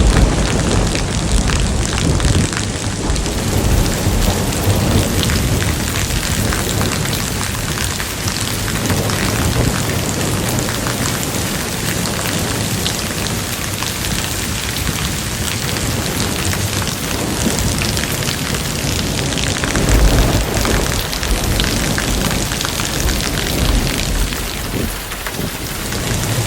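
Heavy rain pouring down and pattering on surfaces, with deep thunder rumbling at the start and again about twenty seconds in.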